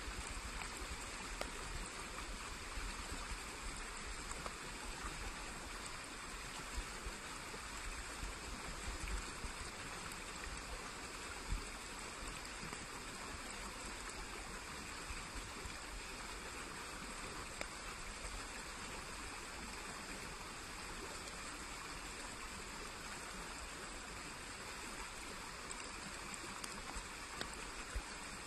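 Small woodland stream flowing steadily, a continuous trickle and gurgle of water, with an occasional faint tap.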